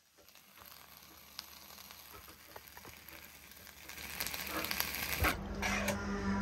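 Meat and cabbage frying in a Chinese wok, sizzling and growing louder. About five seconds in come a few sharp knocks and a ladle stirring in the wok, over a steady low hum.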